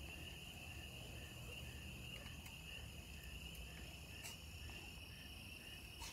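Night insects chirring steadily in a high continuous drone, with another insect chirping about three times a second; a few faint clicks sound now and then.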